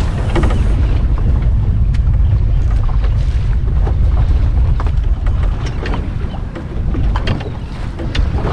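Wind buffeting the microphone over the wash of choppy sea around a small boat, with scattered light clicks and knocks.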